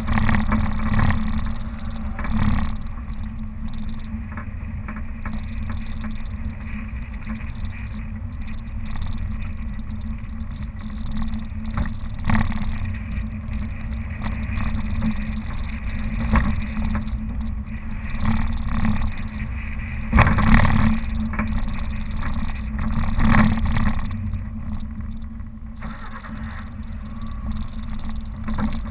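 Suzuki Vitara engine running as a steady low drone while driving off-road, with knocks and jolts from the rough going, the loudest about two-thirds of the way through.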